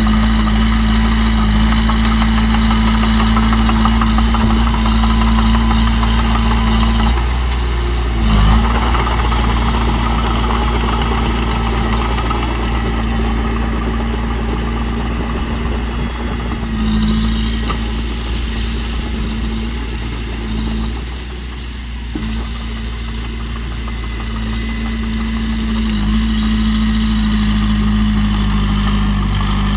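Heavy diesel engine of earthmoving machinery running steadily at low revs, its pitch dipping briefly about eight seconds in. It quietens for a moment around twenty-one seconds, then picks up again.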